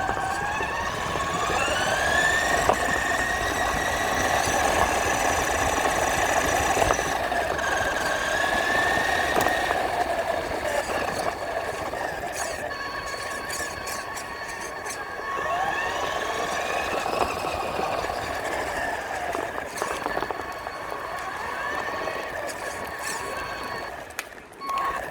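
RC truck's electric motor whining, its pitch gliding up as it speeds up in the first couple of seconds, wavering, and rising again about two-thirds of the way through.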